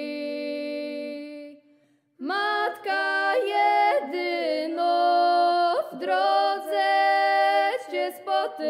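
Several women's voices singing an unaccompanied Lenten hymn in harmony, to a Górale highland folk melody. A held chord fades out about a second and a half in; after a brief silence the voices come in together again and sing on with changing notes.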